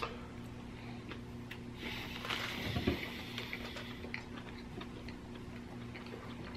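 A person biting into and chewing a fast-food chicken sandwich: a sharp click at the start, soft scattered mouth clicks, and a louder stretch of chewing about two to three seconds in, over a steady low hum.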